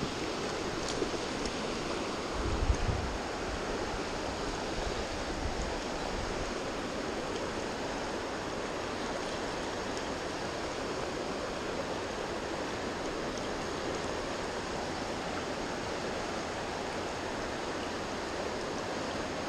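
River water rushing steadily around the angler's legs and over a shallow riffle. A brief low thump comes about two and a half seconds in.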